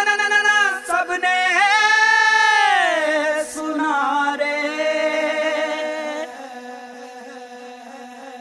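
Recorded male voice singing long, sliding held notes in a slow opening over a steady drone; the voice stops about six seconds in and the drone carries on softly.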